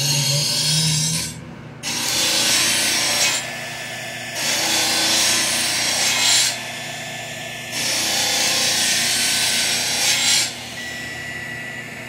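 Heat gun blowing hot air onto heat-shrink tubing on a wire. Its loud hiss swells and drops four times, then settles to a quieter steady hiss near the end.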